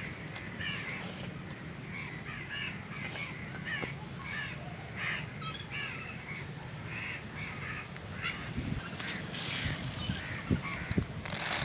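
Crows cawing over and over, a short call every half second or so, with a loud noisy burst near the end.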